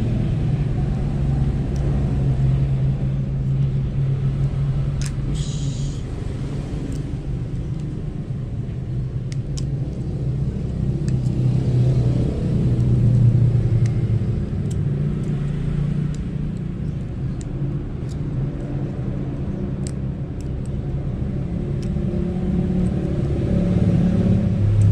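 Steady low engine-like rumble running throughout, swelling and easing a little, with a few faint light clicks.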